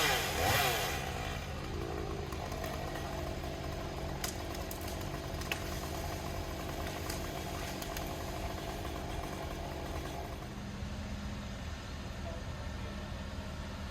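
An engine running steadily at a low idle, with a few light clicks, after a louder revving sound that dies away in the first second or so.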